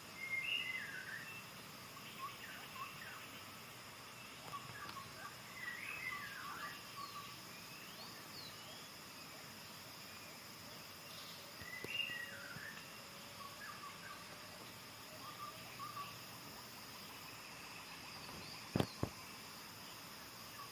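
A songbird sings short whistled phrases with sliding notes every few seconds over a steady high insect drone. Two sharp clicks come near the end.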